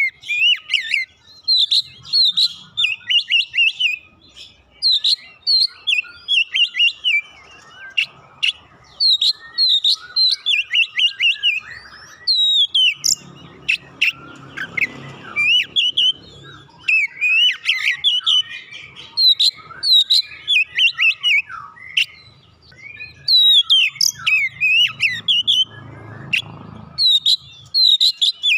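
Oriental magpie-robin singing vigorously: quick, varied chirps and whistled notes in rapid phrases with brief pauses, repeated throughout.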